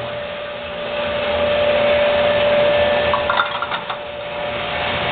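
Motor-driven pump of a stainless-steel bottle washer running with a steady whine, along with a few short clicks about three and a half seconds in.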